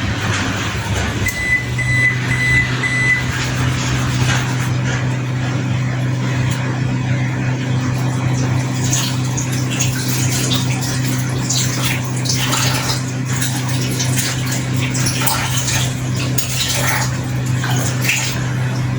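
Microwave oven beeping about four times in quick high-pitched tones about 1.5 to 3 seconds in, marking the end of a 2-minute run at high power on a dish of dal. A steady low hum runs under it, with light clattering in the second half.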